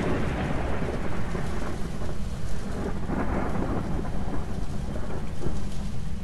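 Rain and thunder: a steady low rumble under a rushing hiss of rain that swells at the start and again about three seconds in.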